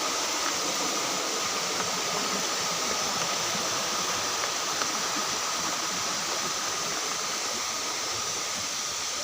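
Steady rush of falling water from a waterfall, an even hiss with no breaks, with a faint steady high tone running under it.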